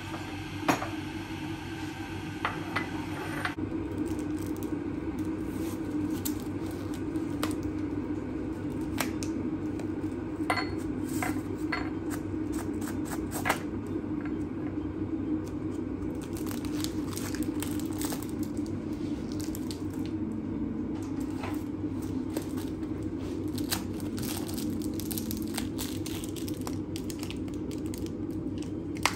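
Scattered light clinks and clatter of hard objects over a steady low hum.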